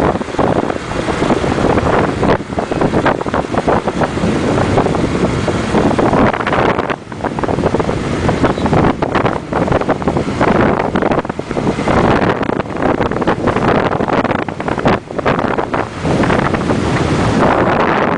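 Heavy wind buffeting the microphone of a camera on a moving motorbike, a loud gusting roar that swells and dips every second or two and covers any engine sound.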